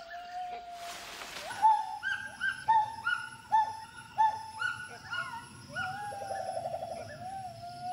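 Gibbon calling: a held hoot, then a run of loud, short, rising whoops about every half second, then a long rising note that breaks into a fast quavering trill near the end.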